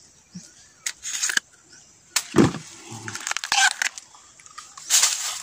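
A knife chopping at a bamboo shoot in dry grass and leaf litter: several sharp crisp chops and crackles of dry stalks, with one duller thump a little over two seconds in.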